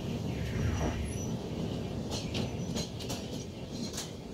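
Running noise of a train of Indian Railways LHB passenger coaches: a steady rumble of wheels on track. Several sharp clicks come through in the second half, as wheels pass over rail joints.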